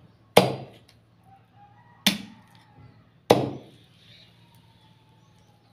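A cleaver chopping through a desi chicken's meat and bone: three sharp chops in the first few seconds, the second and third about a second apart.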